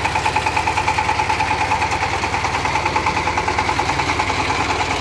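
Kirloskar power tiller's single-cylinder diesel engine running steadily with a rapid, even chug, driving a reaper attachment that cuts through standing crop.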